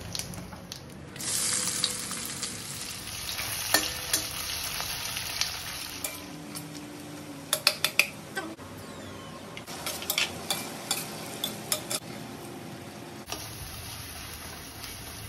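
Whole spices and sliced onions sizzling as they fry in hot oil in a stainless steel kadai, stirred with a spatula that scrapes and clacks against the pan. The sizzling swells a little over a second in, and the clacks come in quick clusters around the middle and later.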